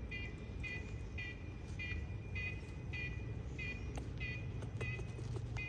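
A short, high, beep-like sound repeating evenly about every 0.6 s, over a steady low rumble.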